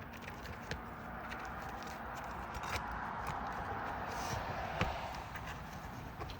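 Scattered sharp clicks and light scrapes of nails being worked loose from under old asphalt roof shingles, over a steady rushing background.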